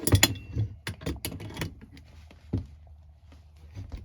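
Rapid clicks and knocks of metal gas-pipe fittings and tools being handled, a burst of them in the first second and a half, then fewer, spaced-out knocks.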